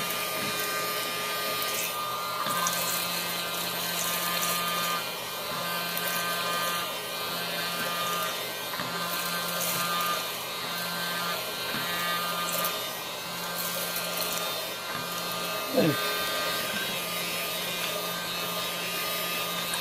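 Mini USB vacuum cleaner's small electric motor running steadily with a light, hair-dryer-like whine while sucking up food crumbs.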